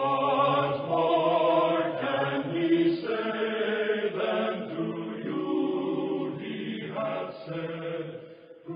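Slow programme theme music of held chords that change every second or two, fading out near the end.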